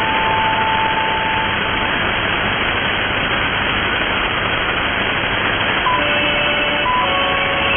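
Shortwave radio reception: steady static hiss from a receiver tuned to a weak broadcast. A faint held tone sounds through it for the first two seconds or so, and several more faint held tones at different pitches come in from about six seconds in.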